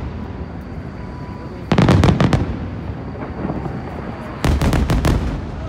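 Aerial firework shells bursting in two quick volleys of sharp bangs, about two seconds in and again about three seconds later, over a continuous rumble of more distant bursts.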